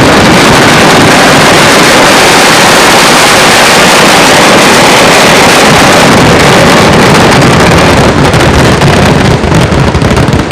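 A dense, unbroken barrage of firecrackers, the bangs so rapid that they merge into one steady, very loud noise that overloads the microphone. Near the end it thins into separate bangs.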